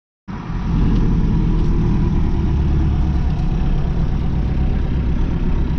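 Ford F-4000 motorhome's engine running steadily as the truck drives, heard from inside the cab. It cuts in abruptly just after the start.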